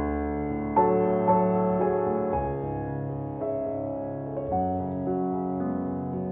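Background piano music: a slow melody of separate notes over held notes.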